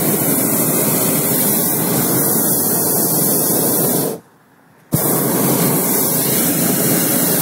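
Hot air balloon's propane burner firing, a loud steady rushing blast that cuts off about four seconds in and fires again under a second later.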